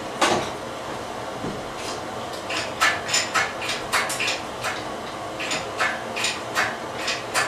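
Irregular metallic clinks and clanks of tools and engine parts knocking against metal: a sharp one just after the start, then scattered runs of lighter clinks.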